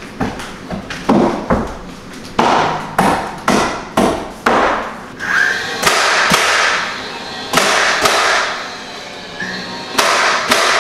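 Cordless nail gun firing nails through barnwood boards into the wall: about fifteen sharp shots, roughly half a second apart for the first five seconds, then in spaced pairs, with a brief whine before a couple of them.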